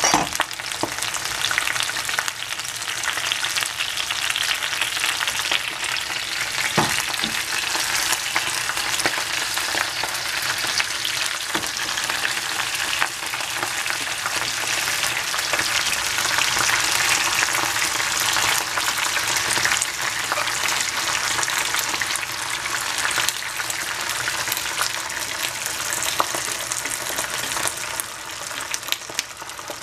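Spinach leaves, then shrimp, frying in hot cooking oil in a pan: a steady sizzle full of fine crackling. A few short knocks sound over it.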